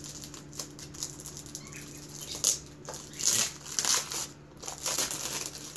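Packaging being handled and opened by hand: crinkling, rustling and tearing with scattered small clicks, in a few short louder bursts around the middle, over a faint steady hum.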